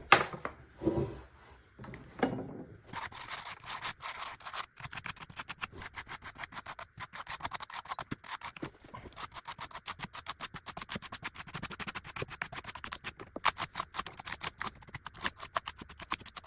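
Rapid, repeated scrubbing strokes across a dirty Logitech G513 keyboard with its keycaps removed, as it is cleaned: a steady run of quick rubbing that starts about three seconds in, after a few separate handling knocks.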